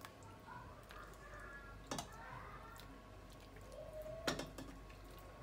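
Metal soup ladle clinking lightly against the steel pot and ceramic bowl while soup is served out, with two short, sharp clinks about two seconds and four seconds in, over quiet room tone.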